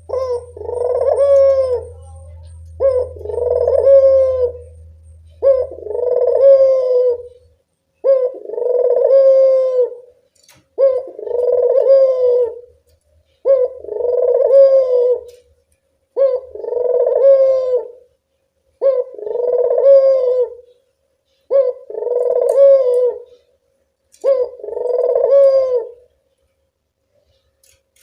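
Puter dove (domesticated Barbary dove) cooing: ten near-identical calls, each a short note followed by a longer rolling coo, repeated about every two and a half seconds.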